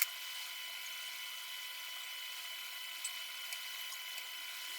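A steady, high-pitched electrical whine with hiss under it, with a sharp click right at the start and a couple of faint small ticks about three seconds in.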